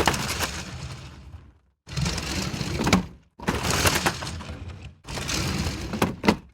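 Four short breaking-and-crashing sound-effect clips in a row, each about a second and a half long, full of sharp cracks and cut apart by dead silence.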